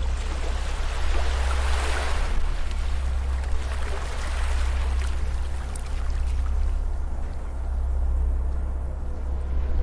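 Ocean waves washing onto a beach, a wave swelling about two seconds in and easing off before the next one builds near the end, over a steady low rumble.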